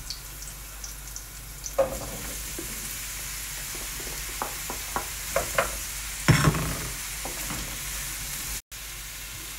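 Chopped green pumpkin sizzling as it fries in hot oil in a non-stick wok, a steady sizzle under the clicks and scrapes of a wooden spoon tipping the pieces in and stirring them. A louder knock comes about six seconds in.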